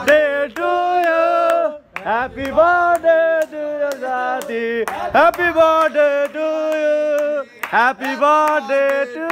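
A man singing loudly without words the recogniser could catch, holding long notes that bend in pitch, with scattered hand claps.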